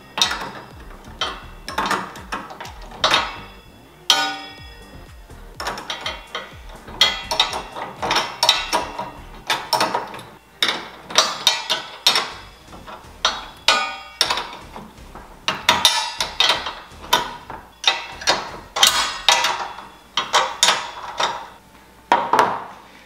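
Half-inch open-end wrench clinking against the steel locking nuts and rim bracket as the nuts on a U-bolt are snugged down, in many short, irregular metallic clicks.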